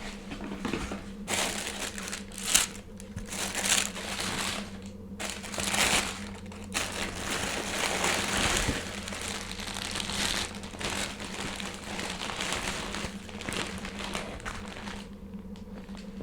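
Packaging being unwrapped by hand: paper crinkling and rustling in irregular bursts, with a faint steady hum underneath.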